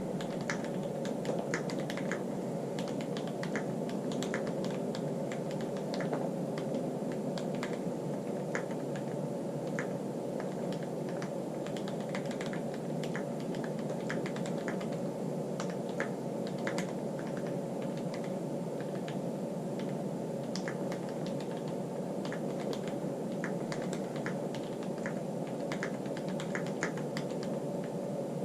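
Typing on a Keychron Q6 mechanical keyboard with tactile Gateron brown pro switches and aftermarket keycaps: a steady run of irregular key clacks, over a steady background noise.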